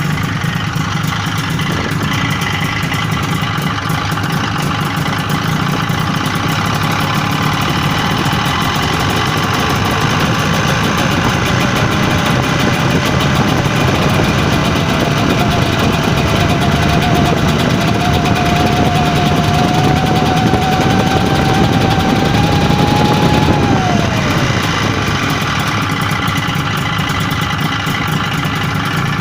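Engine running with a knock that the uploader identifies as piston knock. Its speed climbs slowly through the middle, then drops back quickly about five seconds before the end.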